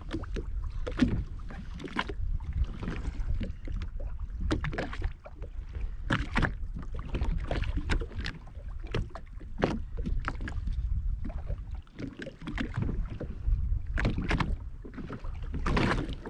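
Frequent irregular knocks and slaps on a jet ski drifting at sea, over a steady low rumble of wind on the microphone.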